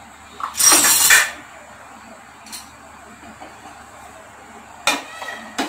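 Clatter of dishes and cutlery as a serving plate and spoon are handled by the stove: a loud clatter about a second in, then two short, sharp clinks near the end.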